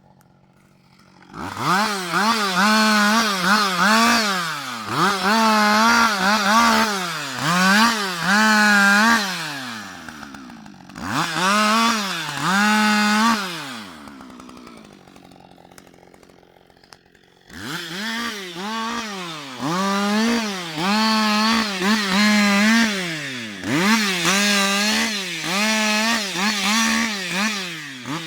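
Husqvarna 560 XP two-stroke chainsaw revving up and dropping back again and again in short bursts of throttle, as in cutting, with short lulls between runs of bursts.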